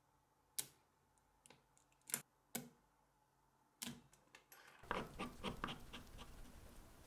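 Small sharp clicks and taps of steel on steel as the bracelet of a Rolex Milgauss is released from the case with a spring bar tool. About five seconds in they give way to a quicker run of clicks and rubbing as the bare case is handled and seated in a watch case holder.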